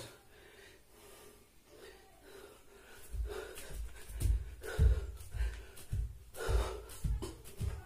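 Frog jumps on a hard floor, done barefoot: from about three seconds in, a dull thud at each landing, about two a second, with heavy breathing between the thuds.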